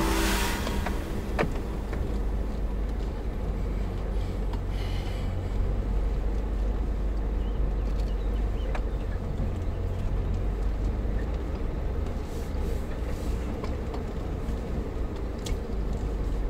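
Off-road vehicle's engine running as it drives, a steady low rumble with a few brief knocks and rattles.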